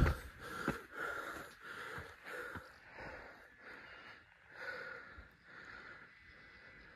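A man breathing hard and fast, out of breath from climbing steep steps: quick, even breaths that grow fainter near the end.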